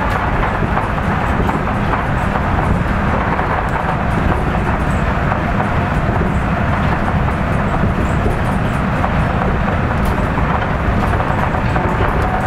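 Kitakyushu Monorail car running along its straddle-beam guideway, heard from inside the car: a steady low running noise from the rubber tyres and drive.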